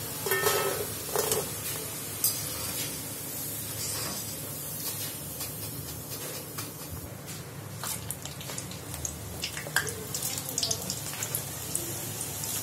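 Hot oil sizzling and crackling in an iron kadai, with a few ringing metal clinks about a second in. Sharper pops come thicker toward the end as once-fried potato sticks are dropped into the very hot oil for their second fry.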